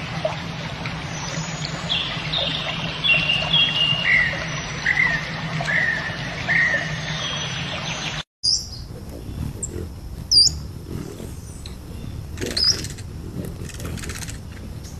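Birds calling: a run of short, repeated calls over a steady low hum and background noise. After a brief break about eight seconds in, sparser high-pitched chirps follow.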